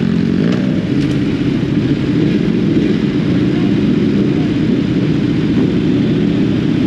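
Sport motorcycle engine running steadily, with no big revs.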